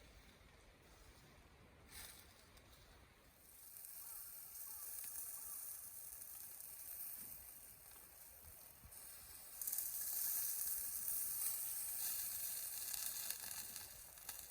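Sizzling hiss of food frying, starting a few seconds in and jumping louder about two-thirds of the way through.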